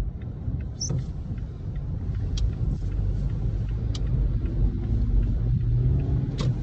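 Steady low rumble from inside a car's cabin in hurricane wind and rain, with a few sharp clicks over it.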